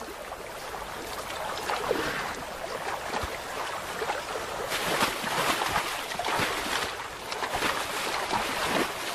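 Shallow river water splashing around the legs of European bison wading and jostling in it, an irregular run of splashes that gets busier about five seconds in.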